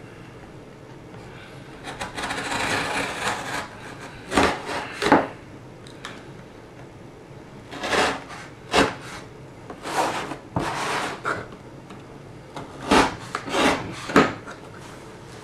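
Blade of a Brous Blades Silent Soldier knife slicing along the edges of a cardboard Priority Mail box. The cuts begin about two seconds in and come as a string of separate strokes, some drawn out for about a second and others short and sharp, with pauses between.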